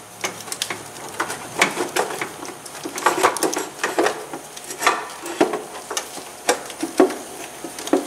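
Irregular clicking and knocking of hard plastic as a stuck plastic wiring cover in an engine bay is worked at by hand and refuses to come free.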